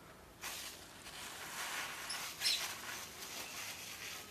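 Plastic bag and paper rustling and crinkling as they are handled, with a louder crackle about two and a half seconds in.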